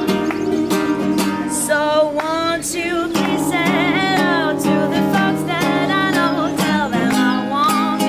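A woman singing a wavering melody to her own steadily strummed acoustic guitar.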